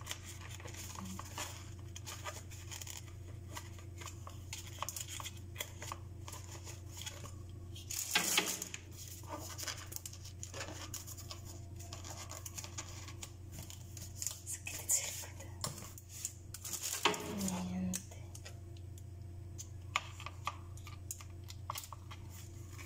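Hard plastic parts of a back stretcher being handled and fitted together: scattered clicks and knocks, with louder rustling of plastic wrapping about 8 s and 17 s in. A steady low hum runs underneath.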